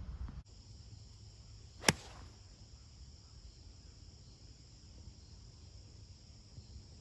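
A golf club striking the ball off the tee: one sharp crack about two seconds in. Behind it, insects chirr steadily at a high pitch.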